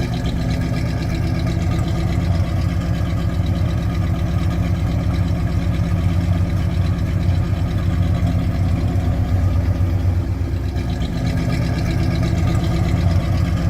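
V8 engine of a 1968 Oldsmobile 442 idling steadily, with a regular low pulse.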